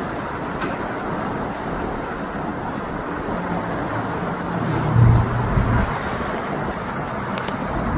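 Steady road traffic noise, with a low engine hum swelling briefly about five seconds in.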